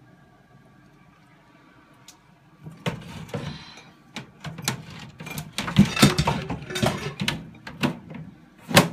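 Clicks, knocks and rustling from handling a reptile enclosure of glass and mesh screen. A faint steady hum comes first, then from about three seconds in a busy run of clatter, with the loudest knocks near six seconds and just before the end.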